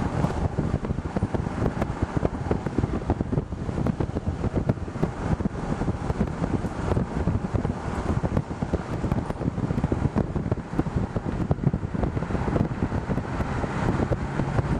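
Car driving, heard from inside the cabin: a steady rumble of engine and road noise with a rough crackle of wind or handling on the microphone. A faint low hum joins near the end.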